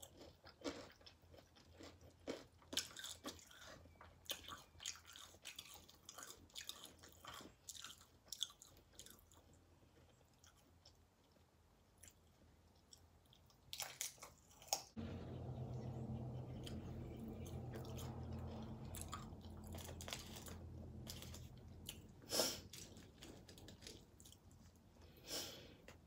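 Close-miked chewing of loaded nachos, with tortilla chips crunching in quick irregular bites. About halfway through a low steady hum starts and slowly fades. Near the end there are a few more crunches.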